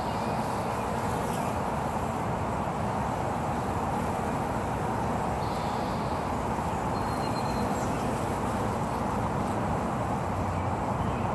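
Honey bees at a hive entrance buzzing as a steady, unbroken hum of many wings.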